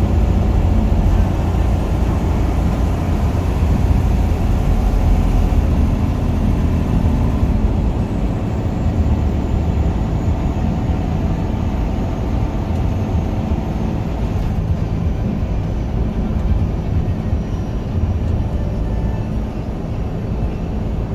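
Steady engine and tyre rumble heard inside a vehicle's cab while it drives at highway speed, a low, even drone with no sudden events.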